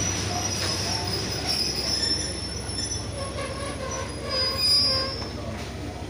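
Passenger train's steel wheels squealing high-pitched as the coaches roll slowly past over a low rumble, with a louder swell about four and a half seconds in. The train is braking to a stop.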